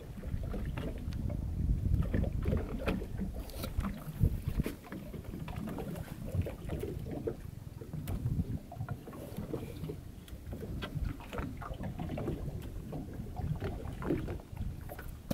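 Low rumble of wind on the microphone and water around a small open fishing boat, with scattered knocks and rattles as a wire-mesh fish pot is hauled up against the hull.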